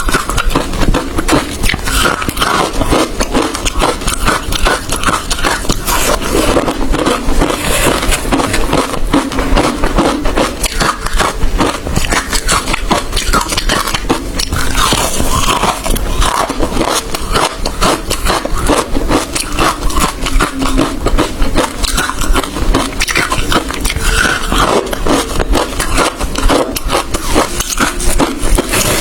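Close-miked crunching of hard ice being chewed, a rapid, unbroken run of crisp crunches and cracks.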